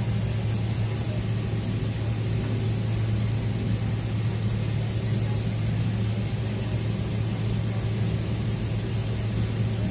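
Steady cabin noise inside a Boeing 767-432(ER) moving slowly on the apron: a strong constant low hum under an even hiss of air.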